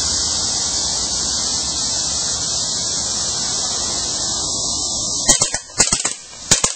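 Steady high-pitched insect chorus; about five seconds in, a CO2-powered air gun fires three quick bursts of sharp shots less than a second apart.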